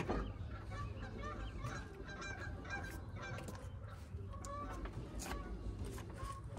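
Birds honking in many short, scattered calls over a steady low rumble.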